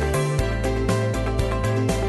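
Background music with a steady beat over a changing bass line.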